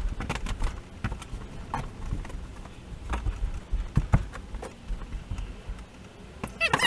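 Scattered, irregular knocks and taps over a low rumble, as of things being handled and set down on the camper's wooden floor and framing.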